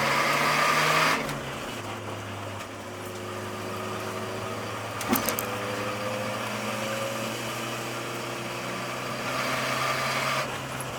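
Nissan S13's engine pulling under throttle while driving, then easing off as the throttle lifts about a second in and running on steadily, with a single short knock about five seconds in and a brief rise in revs near the end.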